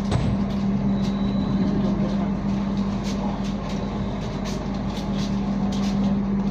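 Running noise inside a moving passenger train coach: a steady rumble with a constant low hum, and scattered sharp clicks from the wheels on the rails.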